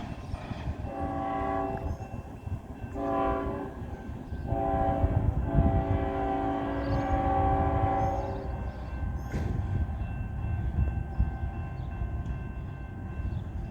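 CSX ET44AH locomotive's five-chime Nathan K5HL air horn sounding three blasts: two short ones, then a long one of about four seconds. A train's low rumble runs underneath, with a single sharp clank near the end.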